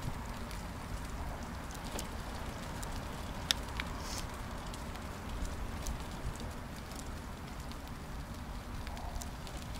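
A bicycle rolling along: a steady low rumble of tyres and wind on the microphone, with scattered light clicks and rattles from the wicker basket and its wire cage.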